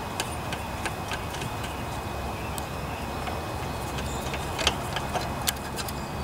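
Scattered light metal clicks and taps from hands fitting the choke linkage and a bolt on a Briggs & Stratton lawnmower carburetor, the sharpest few coming close together near the end, over a steady low background hum.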